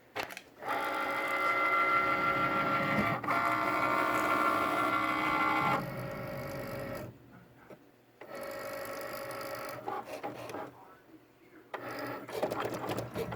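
Cricut cutting machine's motor running with a loud, steady whine for about five seconds, briefly interrupted once. It follows with quieter runs and pauses, then a rattling sound near the end. The owner calls it a loud noise from the machine.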